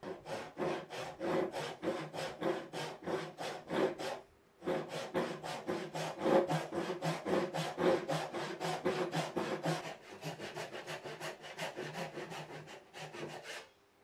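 Hand saw cutting through a wooden block with quick, even back-and-forth strokes. It pauses briefly about four seconds in, then runs on, the strokes lighter for the last few seconds before they stop near the end.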